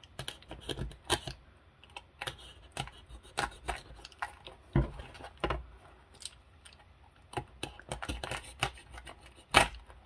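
Snap-off utility knife blade cutting through paper along the spine hinge of an old hardcover book: a run of irregular crisp clicks and scratches, a few a second, with one louder click near the end.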